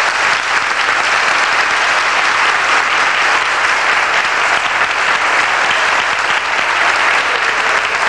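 A large audience applauding steadily at the close of a speech.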